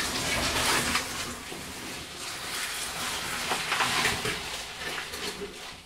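Scuffing, shuffling and rustling of a caver moving along a wet, muddy cave passage: boots and oversuit scraping on clay, in an irregular run of noise without any steady beat.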